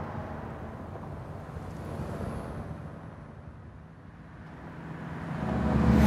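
Low rumble of city traffic ambience, as in a street field recording, sinking to its quietest about four seconds in and swelling again near the end.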